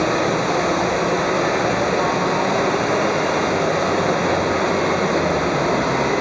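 Radio-controlled scale model helicopter hovering low over the floor, its main rotor making a steady, even rushing noise.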